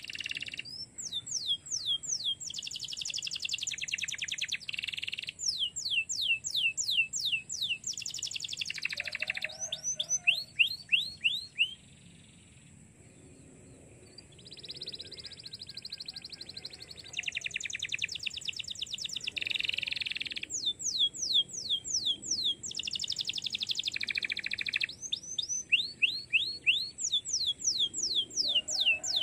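Domestic canary singing a long, varied song: rapid runs of quick sweeping whistled notes alternate with dense warbled phrases, with a brief lull about twelve seconds in.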